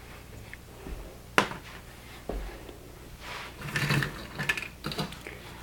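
Plastic Lego pieces and a built Lego model being handled: a sharp click about a second and a half in, then a patch of rattling and clattering, and a few more light clicks near the end.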